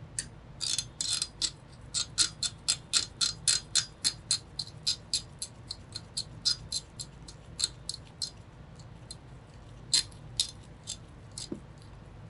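Screwdriver turning the CPU cooler's mounting screws: a steady run of sharp clicks, about three or four a second, that stops after about nine seconds, followed by a few more clicks near the end.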